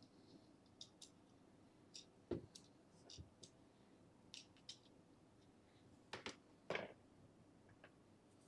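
Faint, scattered clicks and light taps as a caliper and a folding knife are handled, about a dozen, the loudest a little over two seconds in and around six to seven seconds in.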